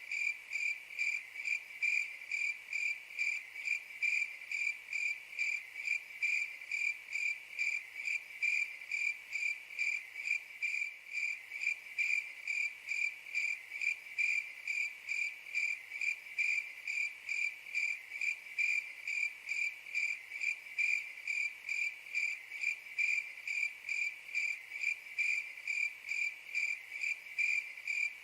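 Crickets chirping in a steady, even rhythm of about three high chirps a second.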